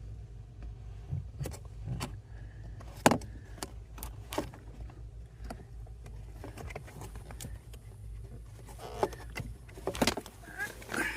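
Scattered clicks and knocks of hands working the plastic tab and housing of the rear blower motor resistor, pushing it down and twisting, over a low steady hum. The sharpest click comes about three seconds in, with a cluster of knocks near the end.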